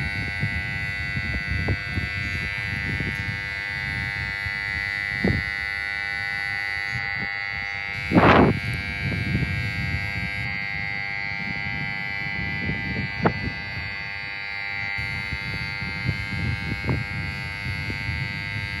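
A railway station platform alarm buzzer sounding without a break, a steady electric buzz on several fixed tones, likely raised by an emergency stop button being pressed. Under it are low rumbling, a few knocks, and one loud short blast about eight seconds in.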